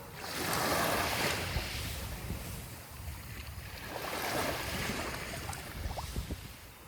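Sea waves washing onto the shore, the surf swelling twice, about a second in and again around four seconds, with a low rumble of wind on the microphone.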